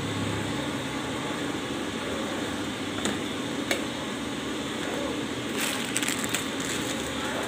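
Small gas-fired coffee roaster running mid-roast, its blower and burner making a steady rushing noise, with a couple of sharp clicks and a short clatter of handling about five and a half seconds in.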